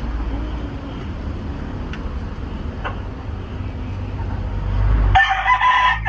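Rooster crowing once near the end, a loud, long, held call. Before it there is only a low, steady rumble.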